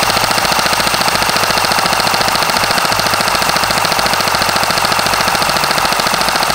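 Poseidon Cerberus airsoft electric gun (AEG) firing one long full-auto burst from a 180-round magazine. Its gearbox cycles in a rapid, even rattle of shots.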